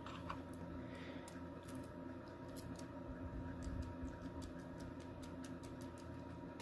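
Faint, irregular light metallic ticks as a key is worked into the keyway of an Emhart interlocking pin-tumbler brass lock cylinder, its pins clicking against the key.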